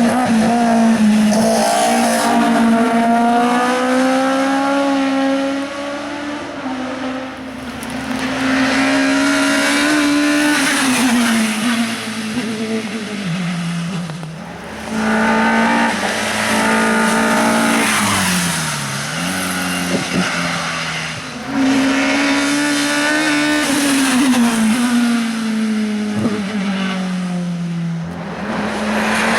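Race car engine revving hard, its pitch climbing and then dropping again several times as it changes gear and lifts off for corners.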